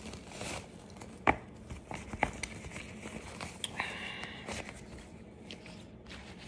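Fabric rustling as a satin drawstring pouch is untied and opened by hand, with a few sharp taps or clicks from handling, the loudest about a second in and another about two seconds in.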